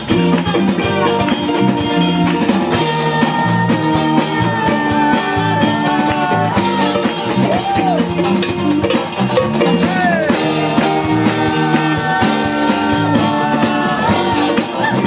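Live rock band playing: electric guitar, bass, piano and drums, with bending lead-guitar lines and singing over the groove.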